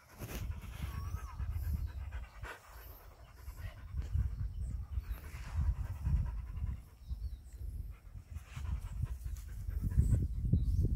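Dog panting, under a low uneven rumble on the microphone that rises and falls and is loudest near the end.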